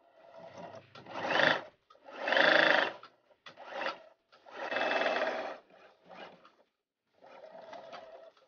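Electric domestic sewing machine stitching scrap denim and chambray patches together in several short runs, stopping and starting again about six times.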